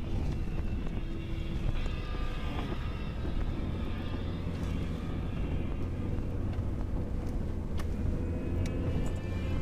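A Ford F-150's 2.7-litre twin-turbo EcoBoost V6 and its tyres, heard from inside the cab, running steadily as the truck is driven along a mountain road.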